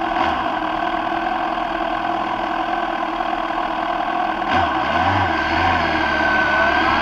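Suzuki GSX-R sport bike's inline-four engine idling, then taking up drive about four and a half seconds in, with the revs rising near the end as the bike pulls away.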